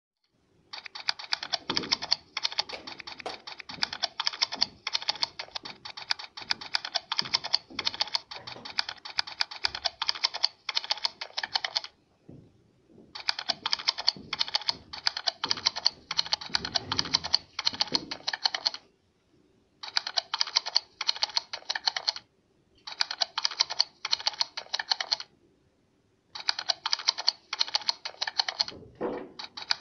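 Rapid typing on a computer keyboard, a dense run of key clicks in five spells: a long one of about eleven seconds, then shorter ones of a few seconds each, with brief pauses between.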